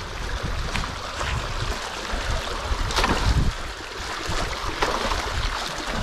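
Water rushing and gurgling through a fresh breach in a beaver dam, with wind buffeting the microphone. A few knocks and scrapes come as a long-handled tool works sticks and mud in the gap.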